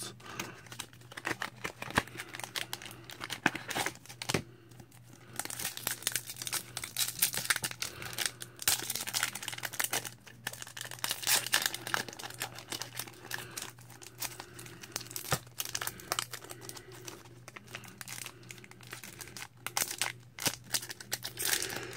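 Foil Pokémon booster pack wrapper crinkling and tearing as it is opened, a dense crackle that grows fuller about five seconds in.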